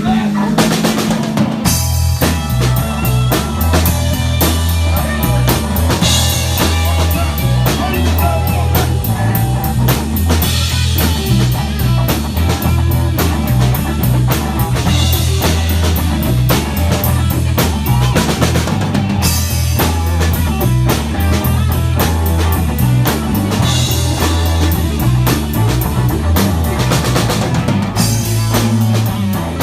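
A live band playing a song, led by a drum kit with kick drum and snare beating steadily over a bass line. The full drums come in about two seconds in.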